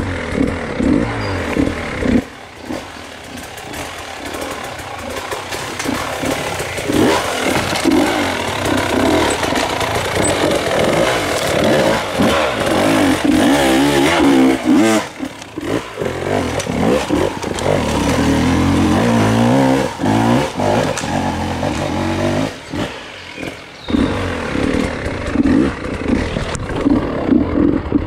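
Off-road dirt bike engine revving hard and unevenly, blipping the throttle up and down as it climbs technical terrain, with brief drops off the throttle.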